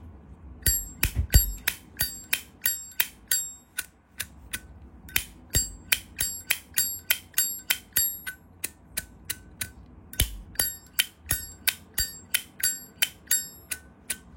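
Zippo lighter's hinged lid being flicked open and snapped shut over and over, each click ringing with a high metallic ping, about two clicks a second with short pauses about four and ten seconds in.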